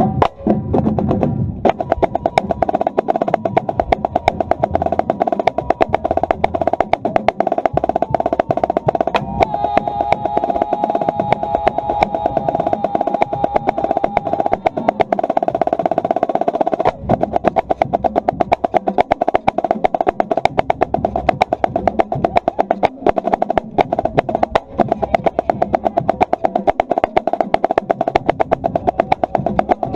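Marching drumline playing a cadence, heard from right at a snare drum: fast, dense snare strokes over the rest of the drum section.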